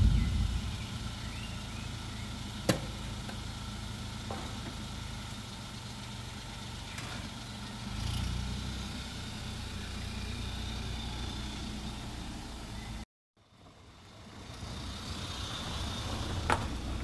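Car on the move: steady engine and road rumble, with a single click about two and a half seconds in. The sound breaks off for a moment about thirteen seconds in, then builds back up.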